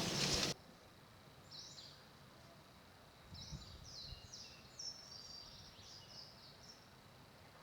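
Background music cuts off about half a second in, followed by faint, high-pitched bird chirps and short calls that come and go.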